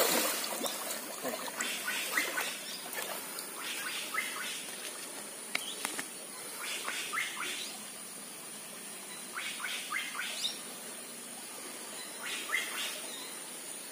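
Water splashing and sloshing as a man wades through a shallow stream. There is a loud splash of hands in the water at the start, then bursts of sloshing from his steps every few seconds.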